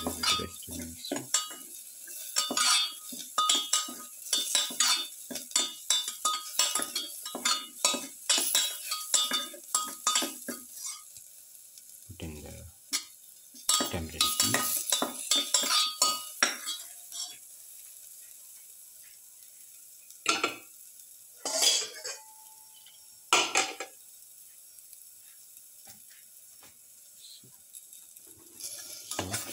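Slotted metal spatula stirring and scraping through garlic, onions and shallots sautéing in a metal pan, with a light sizzle underneath. The stirring is busy for about the first ten seconds, then thins to a few separate strokes with a quiet pause, and picks up again at the very end.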